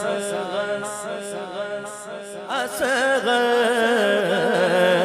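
Male voice singing a drawn-out, wavering melismatic phrase of an Urdu noha, heavy with echo, over a steady drone; a fresh, louder phrase begins about halfway through.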